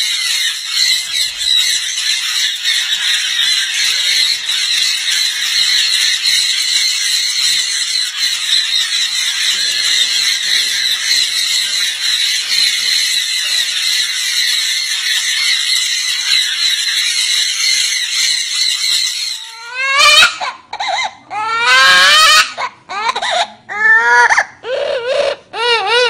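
A large flock of sun and jenday conures chattering and squawking together in a dense, high-pitched din. It cuts off about twenty seconds in, and a single green parrot gives a run of loud calls that swoop up and down in pitch.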